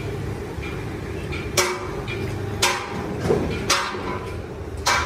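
Sharp knocks with a brief ring after each, starting about a second and a half in and coming roughly once a second, four in all, over a steady low background rumble.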